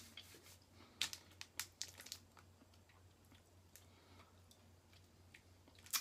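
Faint crunchy chewing of a Nature Valley protein peanut and chocolate bar with puffed rice bits, mixed with the crinkle of its foil wrapper in hand: a cluster of crackles about a second in, then scattered light ticks.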